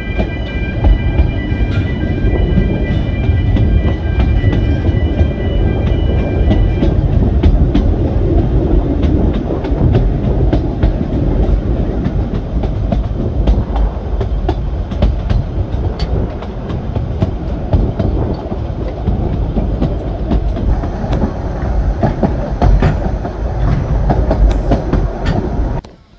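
Narrow-gauge railway carriage running along the track, heard from on board: a steady loud rumble with clicks and clatter from the wheels on the rails. A steady high-pitched ringing tone sits over it for the first seven seconds or so.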